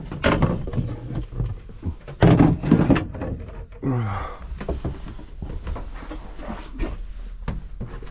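A series of irregular knocks and thumps, loudest between two and three seconds in and sparser in the second half.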